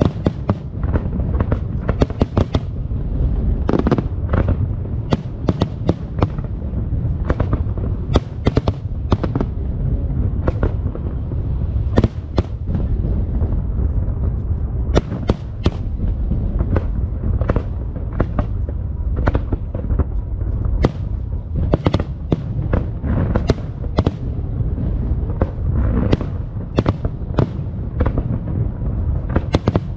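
Aerial fireworks bursting in a dense barrage: many sharp cracks and bangs, some in quick clusters, over a continuous low rumble of booms.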